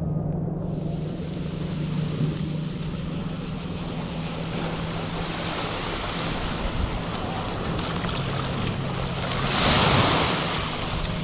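Small sea waves lapping and breaking on a sandy shore, with a louder wave washing in close about ten seconds in.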